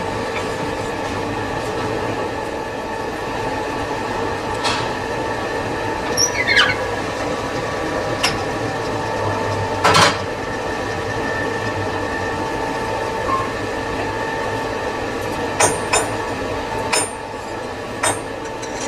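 Lathe running with a steady hum of several constant tones, with scattered sharp metallic clinks and knocks, the loudest about ten seconds in, and a short falling ring about six seconds in.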